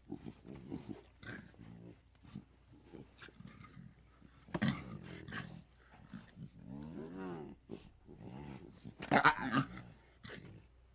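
Juvenile Tyrannosaurus rex creature sound effects: a run of short growls and grunts, a louder growl about four and a half seconds in, a drawn-out call that rises and falls in pitch around seven seconds, and the loudest, a short roar, about nine seconds in.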